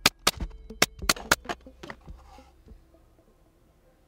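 Pneumatic brad nailer firing about eight brads in quick succession, each a sharp crack, as a thin plywood bottom is nailed onto a plywood drawer box; the shots stop about two seconds in.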